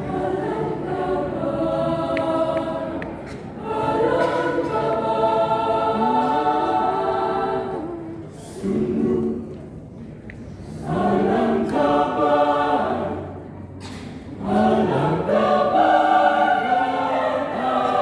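Choir singing, in several phrases separated by brief breaks.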